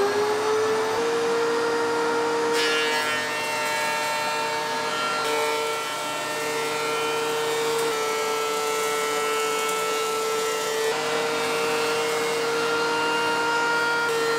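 DeWalt 735 thickness planer running at full speed with a steady whine, its chip-ejection fan blowing shavings through the dust hose while a rough 2x4 feeds through on a light cut.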